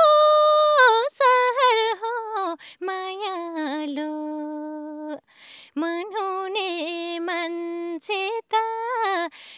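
A young woman singing a Nepali song without accompaniment. She holds long notes with bending, ornamented turns, stepping down from a higher held note to a lower one, and takes a breath about five seconds in.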